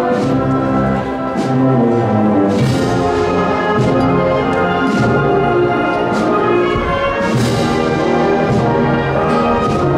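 Brass band playing a Holy Week processional march: sustained brass chords with percussion strikes about once a second.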